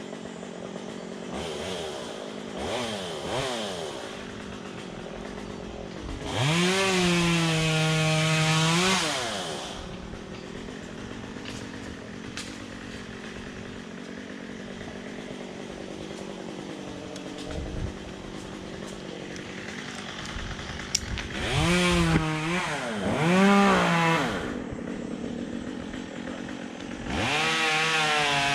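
Chainsaw idling, then revved to full throttle and held there for a couple of seconds about six seconds in. It is blipped up several times around the twenty-second mark and opened up again near the end.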